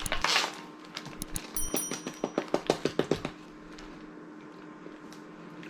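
A run of quick, sharp crackles and clicks, several a second, from a plastic candy wrapper being handled and opened. It stops a little past halfway, leaving a faint steady hum.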